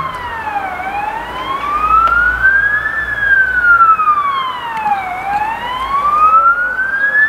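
Fire engine siren wailing, its pitch rising and falling slowly, one full sweep about every four seconds.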